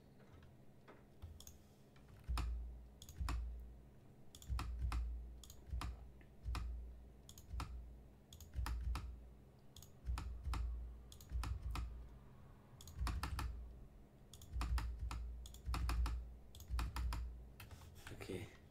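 Typing on a computer keyboard: irregular runs of key clicks, each with a dull thump of the keys bottoming out.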